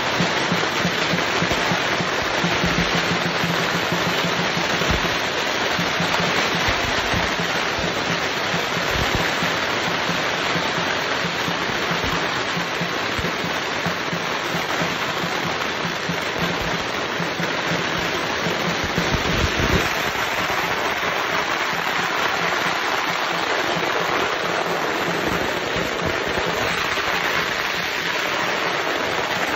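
A long string of firecrackers going off in a continuous, dense crackle, with a few heavier bangs mixed in.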